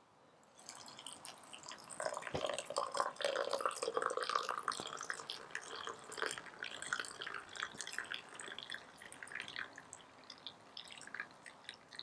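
Water dripping and splashing in a dense patter of small drops. The patter starts under a second in, is busiest a few seconds in, then thins out.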